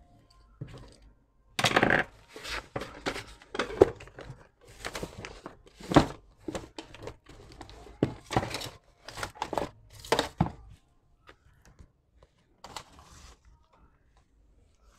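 Hands working at the cable bundle of an e-bike hub motor: irregular crinkling, tearing and knocking of plastic and wire, starting about a second and a half in and stopping about eleven seconds in, with one more short rustle near the end.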